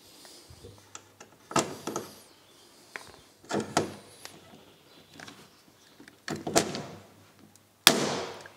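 Hand pop-rivet gun setting a blind rivet through a metal bracket into an aluminium panel: three squeezes of the handles, then a sharp crack near the end as the mandrel snaps off.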